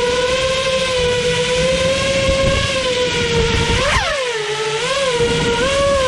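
FPV quadcopter's brushless motors spinning Ethix P4 Candy Cane 5.1-inch tri-blade props, giving a steady high whine. About four seconds in, a quick throttle punch sends the whine sharply up and then back down, followed by a few short pitch wobbles. Low wind rumble runs under it.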